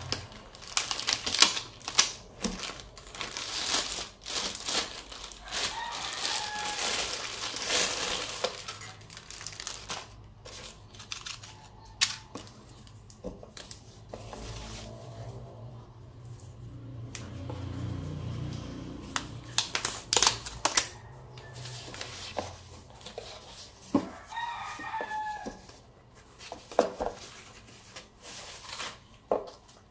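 Plastic bag and foam wrapping crinkling and rustling as hands peel them off a riflescope, with irregular sharp crackles and a couple of short squeaky tones, about six seconds in and again about 24 seconds in.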